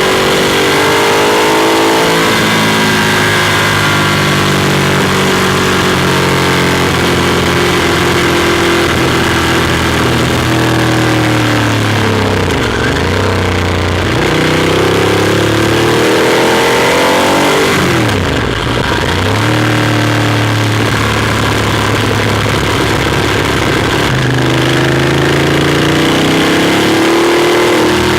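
Ducati Monster 821's Testastretta L-twin engine under way, its pitch rising and falling with the throttle and gear changes. Twice it drops low and climbs back up. Wind and road hiss run underneath.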